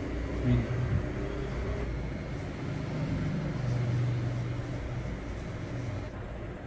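Cordless T-blade beard trimmer running with a steady buzz.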